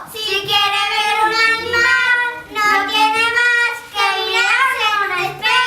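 Children's voices singing a song in long held notes, in a few phrases with short breaks between them.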